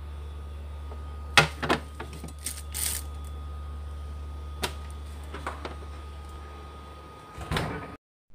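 A white plate set down on a glass refrigerator shelf, clinking and scraping a few times over a steady low hum from the open refrigerator. Near the end there is a louder knock and thump, and the hum stops.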